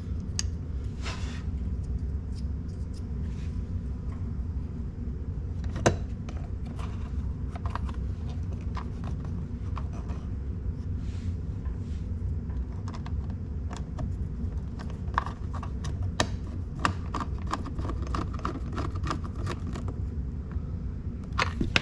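Scattered small clicks and taps of hand tools and plastic trim as the parking brake release and lower dash panel are screwed back in, with one sharper click about six seconds in. A steady low hum runs underneath.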